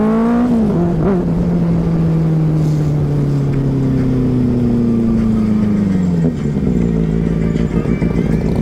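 A motorcycle engine under way. It pulls up through the revs, changes gear just under a second in, then holds a steady note that slowly sinks as the throttle eases, with a further drop in revs about six seconds in. Low wind rumble on the microphone runs underneath.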